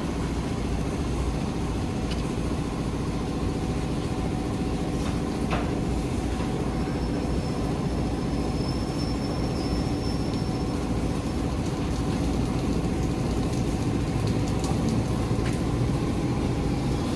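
Steady mechanical hum with a low rumble and several steady tones, with a few light clicks, from machinery in a car wash bay.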